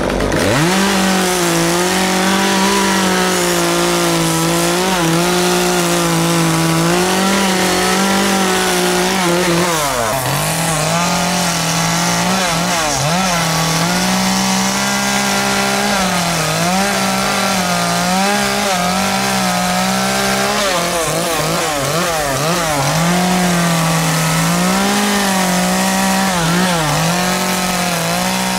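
Chainsaw running at high revs through the whole stretch while carving wood, its engine note dipping and recovering several times as the chain bites into the wood under load.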